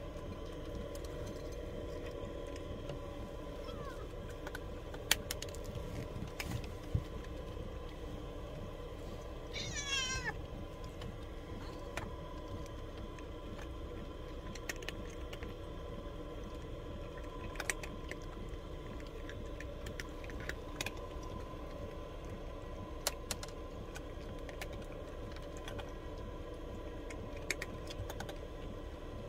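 Domestic cat meowing once about ten seconds in, a short call falling in pitch, as it eats kibble from its bowl, with a few faint clicks scattered through.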